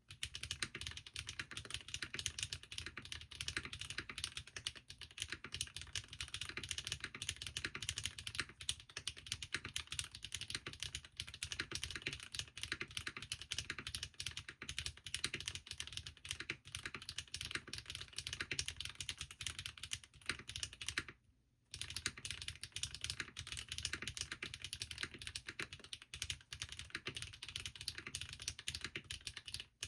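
Fast, continuous typing on a Bahm Studio Droplet custom mechanical keyboard fitted with lubed HMX x Swagkeys Catmint switches and Linworks keycaps: a dense stream of keystrokes. The typing stops for under a second about two-thirds of the way through.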